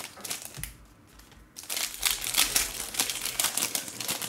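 Foil trading-card pack wrapper crinkling as it is handled, dropping to a lull for about a second near the start, then crinkling steadily again.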